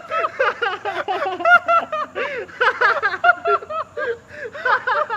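People laughing: a long run of quick, high-pitched giggles.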